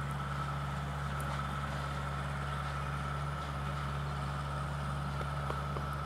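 Diesel engine of a digger (hydraulic excavator) running steadily, a low even hum with a faint higher whine over it.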